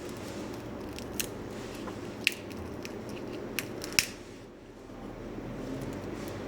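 A few sharp clicks of metal tweezers and a loosened LCD panel against a smartphone's frame and glass while the screen is pried off, over steady background noise.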